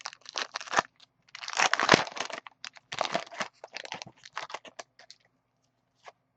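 Foil wrapper of a trading-card pack crinkling and tearing, loudest about two seconds in, followed by lighter clicks and rustles of cards being handled.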